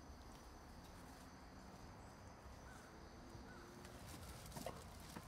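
Faint forest ambience, near silence: insects chirring steadily, with a few faint taps near the end.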